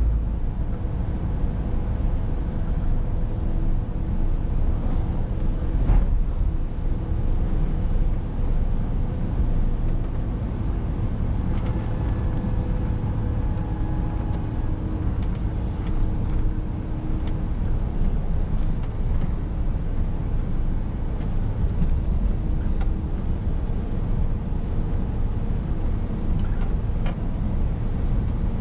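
Inside the cab of a Scania S460 truck on the move: its 13-litre straight-six diesel drones steadily at cruise under rumbling tyre and road noise, with a single thump about six seconds in.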